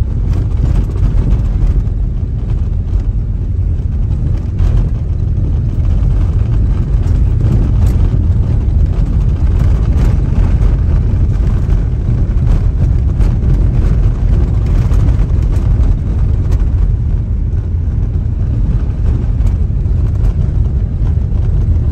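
Steady road and engine rumble of a moving car heard from inside the cabin, heavy in the low end, with no sharp events.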